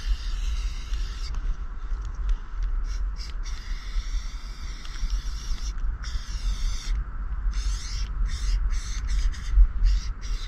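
Aerosol spray-paint can hissing in bursts of a second or two, cutting off and starting again many times, over a steady low rumble.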